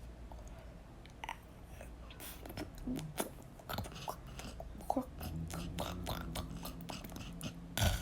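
Mouth noises close to the microphone: a run of short smacks and clicks, like chewing, with a low steady hum from about five seconds in and a louder click near the end.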